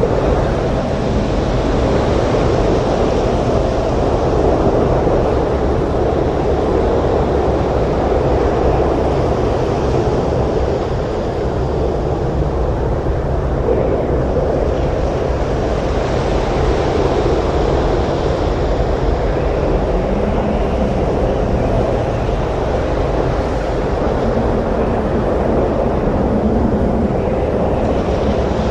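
Storm surf breaking on a beach together with wind: a steady, unbroken rushing noise with no separate wave crashes standing out.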